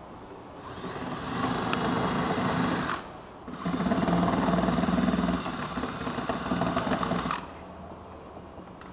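Cordless drill running against a panel in two long runs, the first about two and a half seconds and the second about four seconds, with a short pause between.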